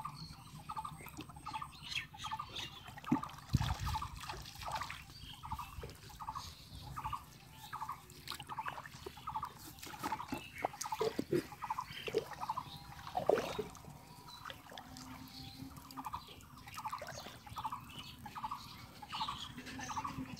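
A bird calling in a steady series of short notes, about two a second, over scattered splashes, knocks and rustling as fish are caught in the shallow water and picked out of a fishing net.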